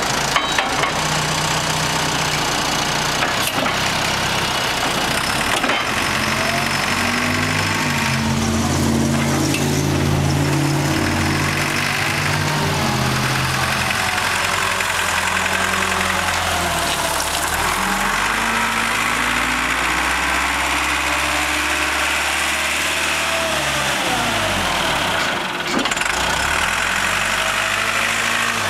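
Caterpillar V130 forklift's engine running as the forklift drives and turns, the engine note rising and growing stronger for several seconds near the middle, then settling. A faint whine slides up and down a few times.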